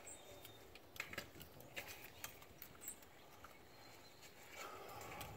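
Faint, scattered small clicks and taps, a few sharp ones about a second in and over the next two seconds, from parts and tools being handled during turbo reassembly on a diesel engine.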